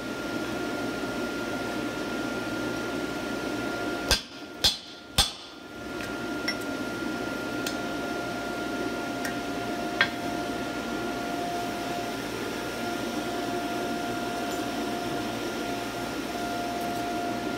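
Three hammer blows on hot steel at the anvil, about half a second apart, about four seconds in, as the jaws of a pair of box jaw tongs are fitted over a bottom tool. A few much lighter taps follow, over a steady hum with a constant tone.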